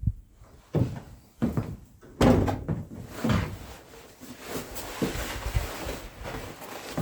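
A run of knocks and thumps, a few loud ones in the first three seconds, then rustling with lighter knocks.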